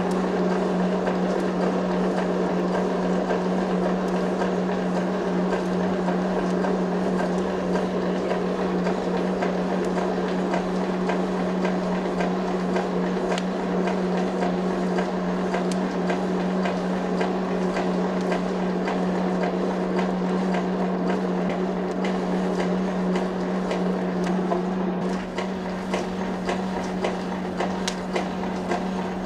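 A workshop machine running steadily with a constant low hum and a rushing noise, with light metallic clicks and clinks throughout that stand out a little more near the end.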